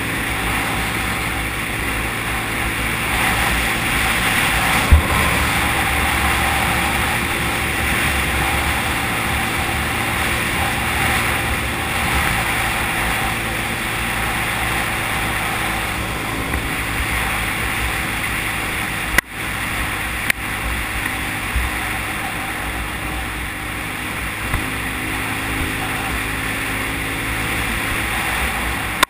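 ATV engine running steadily under way on a gravel trail, mixed with tyre and wind noise on a helmet-mounted camera. A single sharp knock comes about five seconds in, and the sound cuts out for an instant about two-thirds of the way through.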